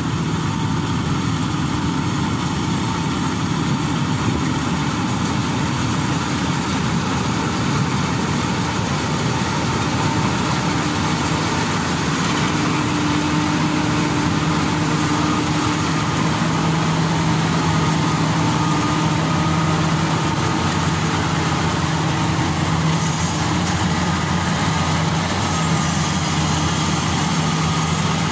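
Maxxi Bimo 102 rice combine harvester running steadily under load as it cuts and threshes standing rice, its engine hum and machinery noise continuous.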